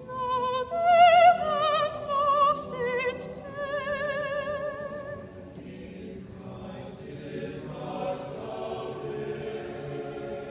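Soprano soloist singing a sustained phrase with wide vibrato, then a softer, lower choir singing on about halfway through.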